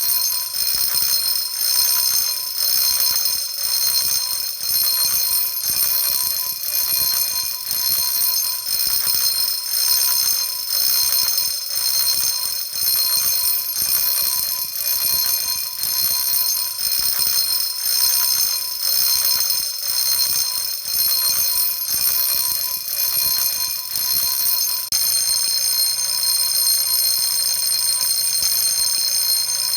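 Electric fire alarm bell made by 仙暉工業, ringing loudly in an intermittent, pulsing pattern. About 25 seconds in it switches to continuous ringing.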